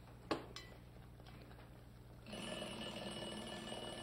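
A kitchen timer's bell rings for about a second and a half, starting a little past halfway and stopping near the end. It is the signal to check the rice. A single sharp knock comes about a third of a second in.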